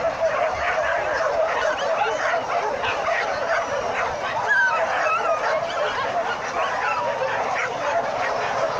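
A pack of many dogs barking and yelping over one another in a continuous, excited chorus.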